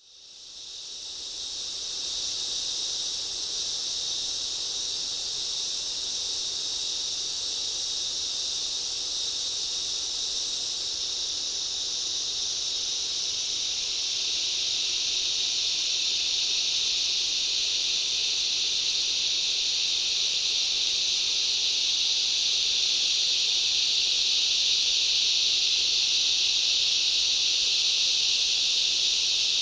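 Rainforest insect chorus: a dense, steady, high-pitched drone of many insects. It fades in over the first couple of seconds and grows louder and fuller about halfway through.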